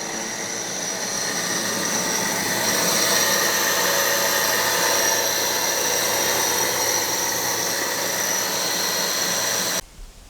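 Homemade grain grinder running steadily with a whine, its dado-blade fly cutter on a table-saw arbor chopping a hopper load of corn. The sound cuts off suddenly near the end.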